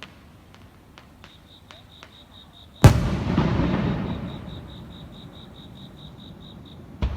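Aerial fireworks: a few faint crackles, then a loud shell burst about three seconds in whose rumbling echo fades over several seconds, and another burst near the end.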